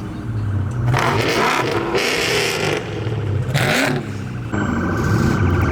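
Car engine running and revving, with three short bursts of hissing noise over the steady low drone.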